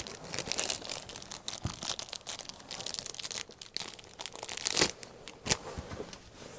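Packaging of a replacement humidifier canister kit being handled and torn open: an irregular crackly rustle of plastic and paper, with a couple of sharper crackles about five seconds in.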